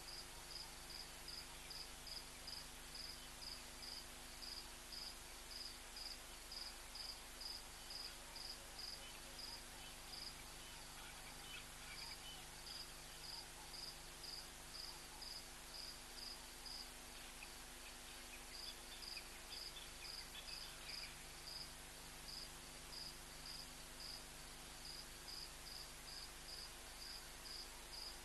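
An insect chirping steadily in the background, one high note repeated about twice a second with a few short pauses, over a faint hiss; a few fainter scattered calls come in around the middle.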